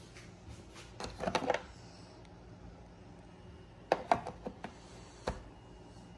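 Hand tools from a tool kit clicking and clattering as they are picked up and handled: a short burst about a second in, another about four seconds in, and a single knock a little after.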